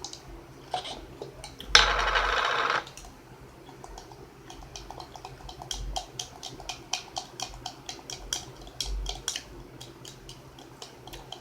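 Eating at a plate: many quick, irregular clicks of forks against the dishes and crunching bites of fried food, thickening from about four seconds in. About two seconds in, a loud buzz lasts about a second.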